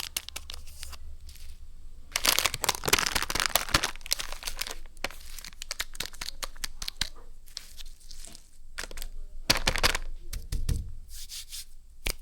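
Cadbury Dairy Milk chocolate bar wrapper being torn open and crinkled by hand, in irregular bursts of rustling, with a long loud stretch of tearing about two seconds in and another burst near the end.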